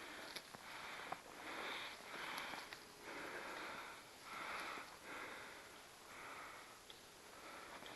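Breathing close to the microphone: soft, even breaths, about one a second, with a few faint clicks between them.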